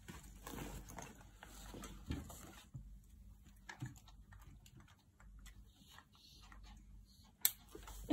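Faint rustling and scattered light taps as a baby monkey paws at a nylon backpack and clambers down onto a fan's wire guard, with one sharp click near the end.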